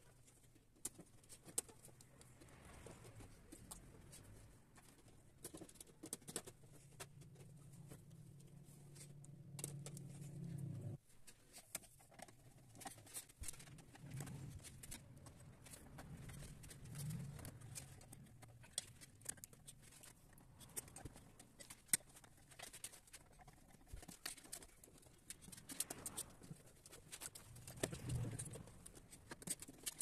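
Faint scattered clicks, ticks and rustles of wires being handled and pushed into slotted plastic wiring duct in an electrical panel, with a low hum that cuts off about eleven seconds in and swells again a few times later.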